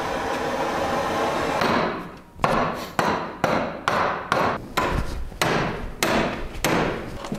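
A hand-held gas torch hissing steadily as it heats a metal part held in a bench vise. Then a hammer beats on the hot metal to bend it, a string of sharp blows about two a second.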